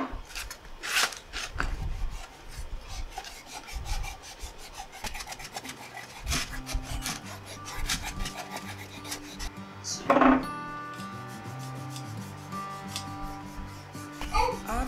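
A cloth rubbing beeswax into a wooden plant box: quick, irregular scrubbing strokes of cloth on wood. Soft background music with held notes comes in about halfway.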